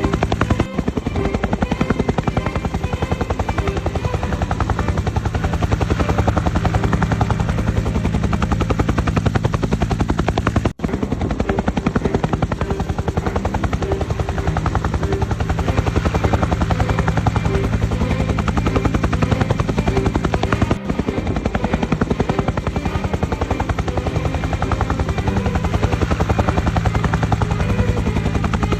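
Helicopter rotor chop, fast and steady, with a low engine drone underneath. The sound dips out briefly three times: just under a second in, about 11 seconds in and about 21 seconds in.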